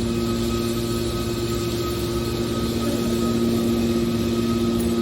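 Hydraulic scrap baler's power unit running steadily, a constant machine hum with a few fixed tones.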